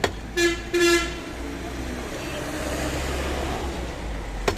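A vehicle horn honks twice in short toots, followed by the rising and fading noise of passing traffic. A cleaver chops into meat at the start and again near the end.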